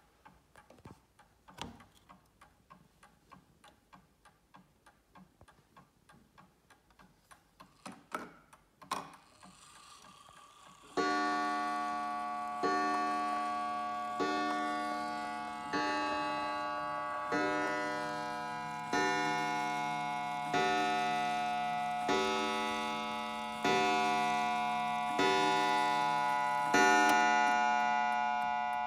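Juba mantel clock ticking, then its strike train clicks and whirs into motion and a hammer strikes its coiled wire gong eleven times, about one and a half seconds apart, each note ringing and fading: the clock striking eleven o'clock.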